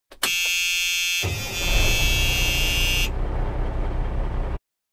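A loud inserted sound effect after silence. A steady harsh tone with many overtones plays for about a second, then a noisy rumbling sound joins it. The tone stops about three seconds in, and the rumble cuts off abruptly near the end.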